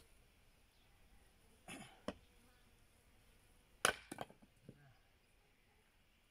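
Axe splitting a firewood round on a chopping block: a light knock about two seconds in, then one hard sharp strike a little before the middle, followed by a few smaller knocks of wood.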